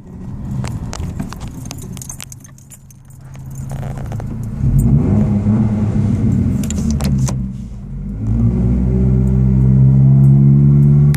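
2010 Ford Ranger's engine and Flowmaster 40 series exhaust, heard from inside the cab, pulling hard under acceleration: the note swells about halfway through, dips briefly, then holds a loud, steady drone near the end. A light metallic jingling, like keys, rattles along with it.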